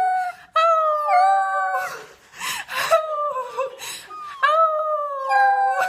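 A dog howling: several long drawn-out howls one after another, some bending in pitch, with short breaks between them.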